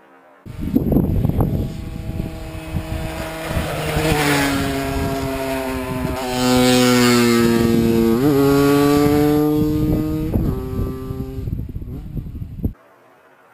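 A 125 cc two-stroke motorcycle engine running under way, mixed with rough low rumbling noise. Its revs sag slowly for a few seconds, jump in a quick blip about eight seconds in, then hold before the sound cuts off abruptly near the end.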